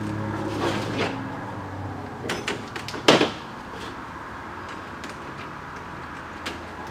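A few light clicks and knocks of hand tools and metal parts being handled at a car's rear suspension, with one louder knock about three seconds in, over a low steady hum.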